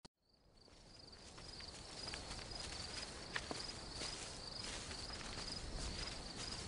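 Night field ambience fading in: crickets chirping in a steady pulsing trill, with scattered footsteps and rustling through grass.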